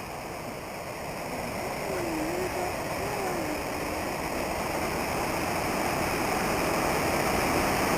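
A rain-swollen waterfall rushing in a steady roar of white noise that grows steadily louder, as if being approached.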